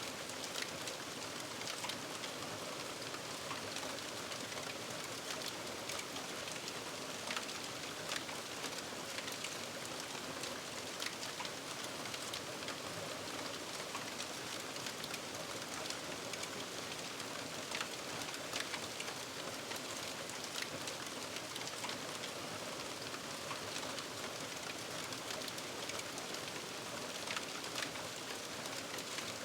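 Aftermath of a fire: smouldering embers giving off a steady hiss, with many small crackles and pops scattered irregularly throughout.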